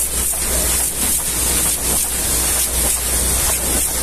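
High-pressure water jet spraying the tarpaulin curtain side of a muddy truck trailer: a steady, loud hiss of spray, with a low steady hum underneath.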